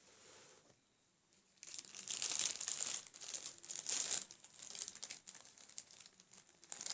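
Crinkling of a packet of slime decorations being handled and opened, starting about a second and a half in and loudest in the middle.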